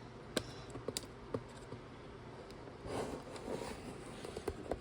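Hands working at a cardboard product box, trying to get it open: scattered sharp clicks and taps, then a stretch of scraping and rustling about three seconds in.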